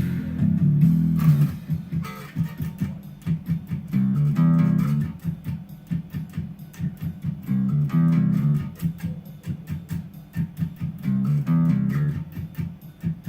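Electric bass guitar played solo, a riff that comes round about every three and a half seconds. Held low notes alternate with quick runs of short, muted dead-note clicks.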